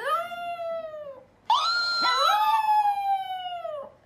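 Chihuahua howling: two long drawn-out howls, the second longer, each sliding down in pitch as it fades out.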